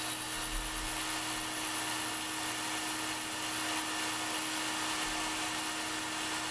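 Vertical milling machine running steadily, a constant hum with a high whine, as a small end mill makes a light pass along the cocking slot of a Weihrauch HW95 air-rifle piston. The pass knocks down the high spots in the slot that make cocking feel rough.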